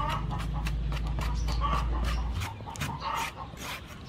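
A knife scraping and slicing the fibrous white flesh from a palm fruit into a bowl of water, in quick regular strokes about four a second. A low steady hum cuts off a little past halfway, and a few short animal calls sound between the strokes.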